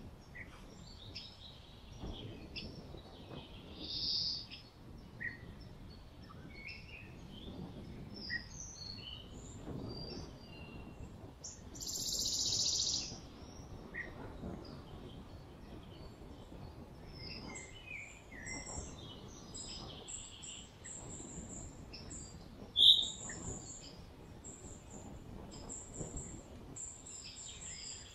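Many small birds chirping and calling in short scattered notes, over a low uneven rumble of wheels rolling on the road. A brief hiss comes about twelve seconds in, and one sharp click about twenty-three seconds in is the loudest sound.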